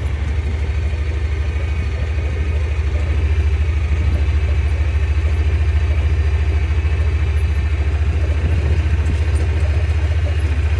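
Motor vehicle engine running steadily: a loud, even low rumble with a fast regular pulse, heard from on board the vehicle.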